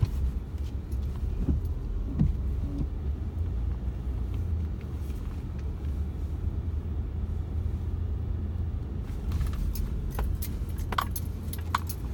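Car driving slowly, heard from inside the cabin: a steady low rumble of engine and tyres on the road, with a few light clicks near the end.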